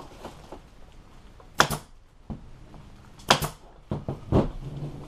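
Staple gun driving staples through vinyl into a wooden seat base: three sharp shots at about one-and-a-half-second intervals, the first two each with a quick second snap, and fainter clicks between.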